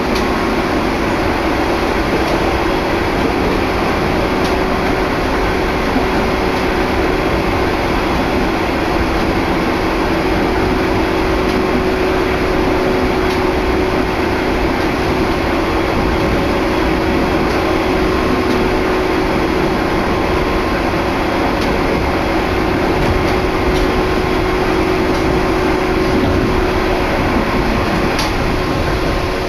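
Electric commuter train running between stations, heard from inside the car: a steady, loud running noise with a constant hum underneath.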